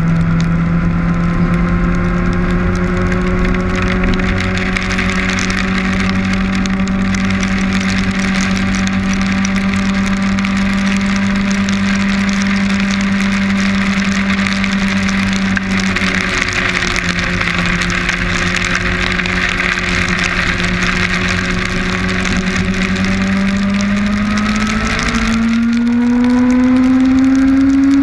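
Kawasaki Ninja motorcycle engine running at a steady cruising speed under a loud hiss of rain hitting hard against the camera. Near the end the engine note climbs as the bike speeds up.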